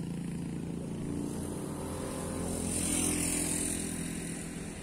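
A motor vehicle's engine running and passing close by, swelling to its loudest about three seconds in, then fading.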